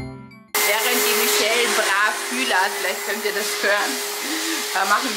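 An electric appliance with an air-blowing motor running: a steady rushing noise with a constant hum that cuts in suddenly about half a second in.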